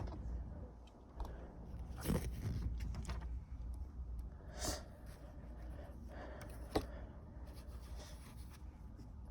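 Plastic Lego bricks being handled and pressed together: a few faint, scattered clicks and rustles, with a steady low hum underneath.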